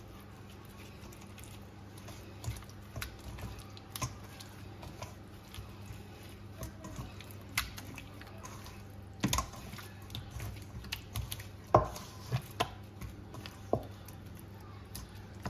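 Wet squelching and slapping as a gloved hand kneads and rubs tandoori marinade into raw chicken pieces in a stainless steel bowl, with scattered soft knocks; the loudest knock comes about two-thirds of the way in.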